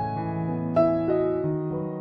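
Slow, gentle piano music: single notes and chords struck every half second or so and left to ring, the loudest note a little under a second in.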